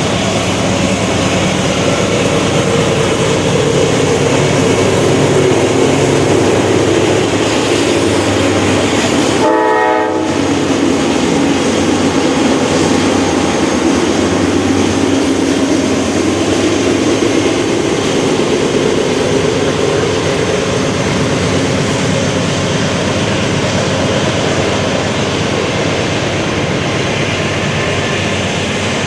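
Freight train of covered grain hoppers passing close by: a loud, steady rumble of wheels on the rails, with a brief break about ten seconds in.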